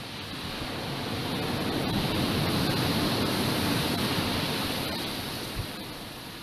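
Ocean surf surging and breaking against lava pouring into the sea, a rushing noise that swells over about two seconds, holds, then fades away.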